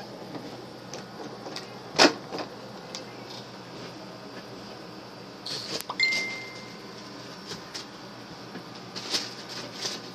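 Handling noise of a toddler playing with toys: scattered clicks, knocks and rustles, with one sharp knock about two seconds in and a clatter about six seconds in, followed by a short high tone.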